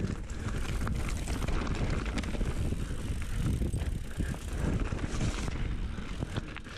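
Mountain bike ridden down a dirt trail: a steady rumble of tyres on dirt, with frequent clicks and rattles from the bike over bumps and wind buffeting the microphone.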